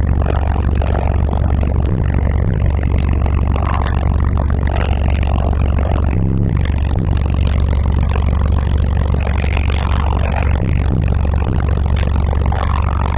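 Car audio subwoofers playing bass-heavy music very loud: a deep, almost continuous bass note with the song's vocals faint above it. Buzzing and rattling from the car goes with it.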